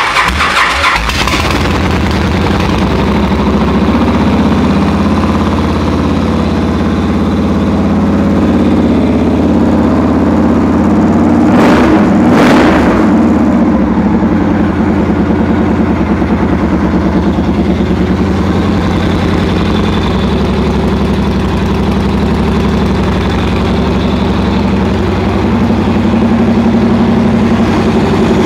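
Victory V92C Deluxe motorcycle's V-twin engine running at a steady idle just after starting, with a brief burst of louder noise about twelve seconds in.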